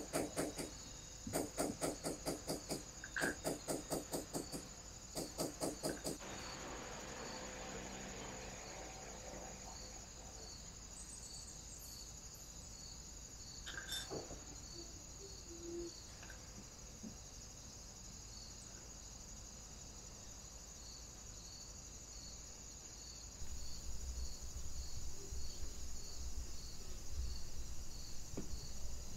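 Crickets chirp steadily throughout. In the first six seconds come quick runs of small sharp taps from tweezers working fine silver filigree wire into a petal frame on a block. A low rumble comes in near the end.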